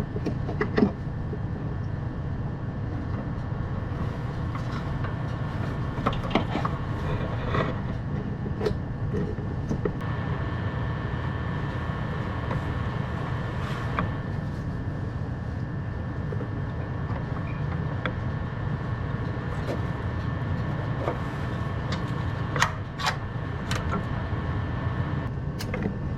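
Steady low mechanical hum in the background, with scattered metal clinks and knocks of parts and hand tools being handled during reassembly.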